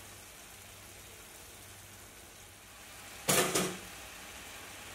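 Pan of prawns and vegetables with an egg sizzling and bubbling steadily in birch sap. About three seconds in, a sharp double clack: a toaster popping up with pitta bread.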